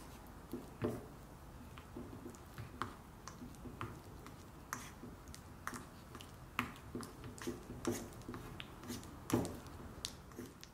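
Wooden spatula working softened butter and chopped herbs in a stainless steel bowl: irregular clicks and taps of the spatula against the bowl, with soft squishing of the butter. The loudest knocks come about a second in and about a second before the end.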